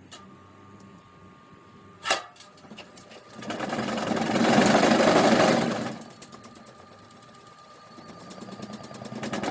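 Washing machine running hard and shaking itself apart, with a fast, even mechanical rattle. There is a sharp knock about two seconds in, a loud swell of noise in the middle, and the rattle builds again near the end.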